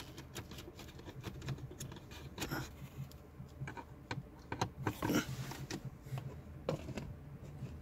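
Light, irregular clicks and scrapes of a screwdriver driving the two screws back into the plastic dashboard trim of a 2007 Nissan Versa, over a faint steady low hum.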